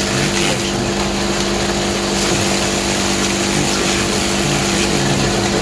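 A motor running steadily with a constant hum.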